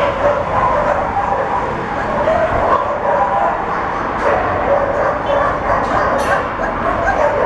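A beagle barking over and over with barely a pause.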